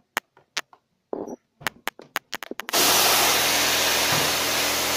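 Battery-powered pump sprayer switched on a little over halfway through: a steady electric pump hum under a loud hiss of water spraying from a brass nozzle onto plastic sheeting. Before it, a few scattered sharp clicks.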